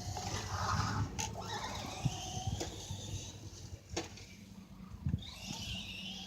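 Traxxas RC car's motor whining up in pitch as it accelerates, with a few sharp knocks.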